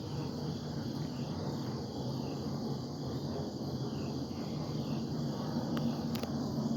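Jet aircraft overhead making a steady low rumble with a hum in it, a sound taken for an unusual one for a jet. Crickets chirp steadily in the background.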